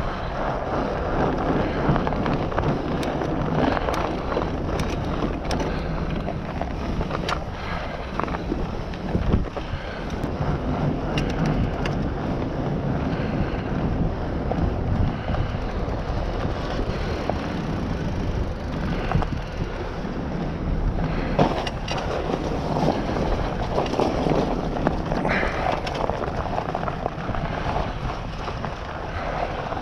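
Wind buffeting the microphone of a bicycle-mounted camera while riding, over the rumble of tyres on the trail and rough ground, with a few short rattling knocks now and then.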